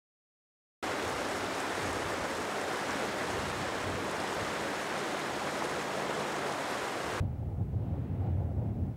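Silence, then an even rushing hiss that starts abruptly just under a second in. About seven seconds in it cuts off and gives way to gusty low wind rumble on the microphone.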